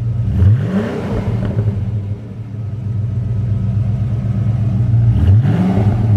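1993 Ford Mustang Cobra's 5.0-litre V8 idling shortly after a cold start, heard at the tailpipes through JBA shorty headers, a stock four-cat H-pipe and a 2.5-inch Dynomax cat-back. The throttle is blipped twice, about half a second in and again near the end, each a quick rise in revs that falls back to idle. The exhaust sounds raspy.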